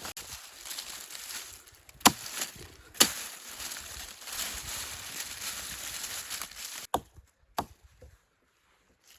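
Wood being chopped with an axe: four sharp blows, two close together a couple of seconds in and two more near the end, with a rough rustling between them.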